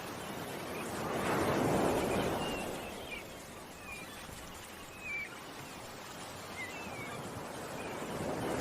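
Ocean waves washing in, one swelling and fading about two seconds in and another building near the end, with small birds chirping in short high notes throughout.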